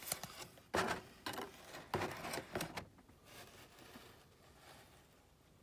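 Paper and cardboard being handled: a model kit's instruction sheet and decal sheet shuffled over its cardboard box, giving several short, crisp rustles and taps over about three seconds.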